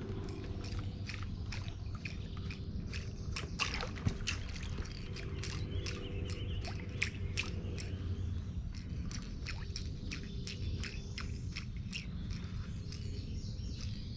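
River water sloshing and trickling around a drifting boat: many quick, irregular splashy ticks over a low steady rumble.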